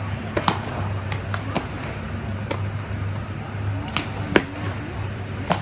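Baseballs popping into leather gloves, a scattered series of sharp, echoing smacks, the loudest about four and a half seconds in as the catcher receives a throw, over a steady low hum.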